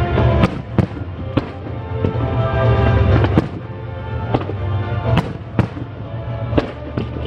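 Fireworks bursting overhead, about a dozen sharp bangs at irregular intervals, over loud music with a heavy low bass.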